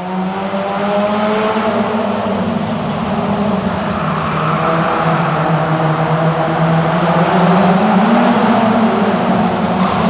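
Rally hatchback's engine held at high revs while the car drifts and spins, its note rising and falling a little. A hissing tyre sound grows in about four seconds in and stays under the engine.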